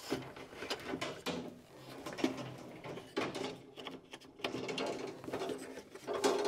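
A short wire fish rod and a cedar shim being pushed up through a drilled hole in a wooden bottom plate, with irregular light knocks and scrapes of wood and wire against the wood.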